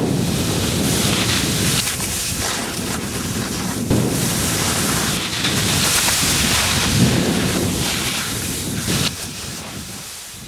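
Snow avalanche running: a loud, rushing rumble that fades out near the end.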